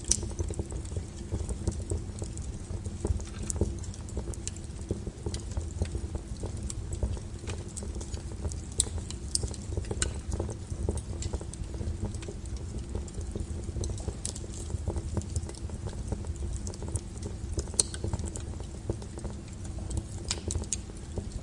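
Wood fire crackling: irregular sharp pops and snaps over a steady low rumble from the burning.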